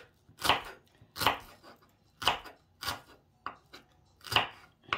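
Kitchen knife chopping shallots on a wooden cutting board: separate, unevenly spaced strokes, about eight in all.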